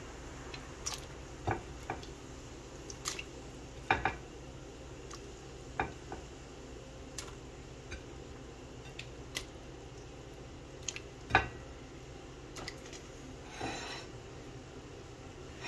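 Scattered light knocks and clinks of an aluminium pot and kitchen dishes, about a dozen in all, as pieces of catfish are put into the pot of water.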